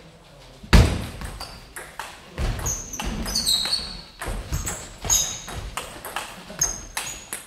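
Table tennis rally: the ball clicking quickly back and forth off the bats and the table, starting about a second in with a loud first hit, with short high squeaks among the hits.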